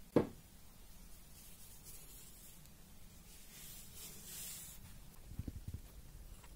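A soft thump as a hand presses bread dough on a silicone baking mat, then a quiet rubbing as flour is smeared over the dough, and a few dull knocks near the end.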